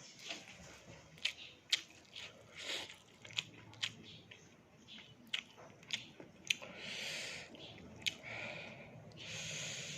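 Close-up mouth sounds of eating fried fish with rice: chewing and biting with many sharp, crisp clicks, and two longer hissing sounds, one about seven seconds in and one near the end.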